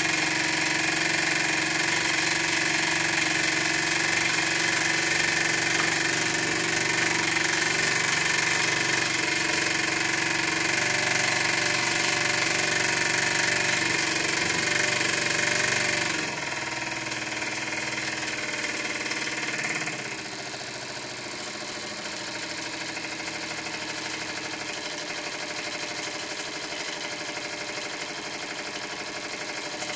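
Microcosm M1 model marine steam engine, a small double-acting brass engine (9.5 mm bore, 15 mm stroke), running fast and steadily on steam from a small boiler. About halfway through the sound gets quieter and a little lower, and a few seconds later it quietens again.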